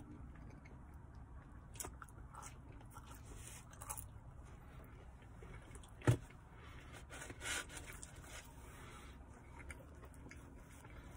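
Close-up chewing and biting of pizza crust: soft mouth sounds with small clicks. A single sharp thump about six seconds in is the loudest sound.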